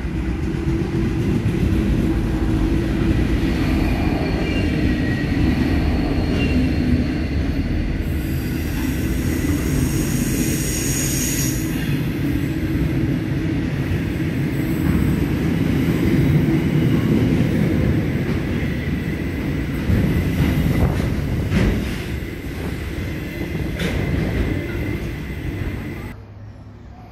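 Pacific National NR class diesel-electric locomotive passing close by at the head of a freight train of container flat wagons: the engine runs over the heavy rumble of wheels on rail, the wheels squeal at times, and there are clacks as the wagons roll over the rail joints. The sound drops away suddenly near the end.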